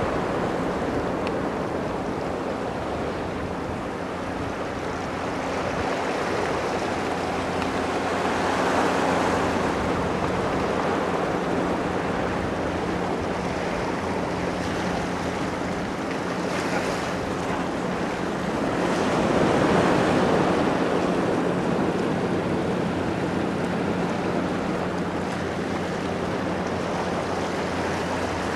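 Ocean surf washing against a rock jetty: a steady rush of waves that swells louder twice, once about a third of the way in and again past the middle.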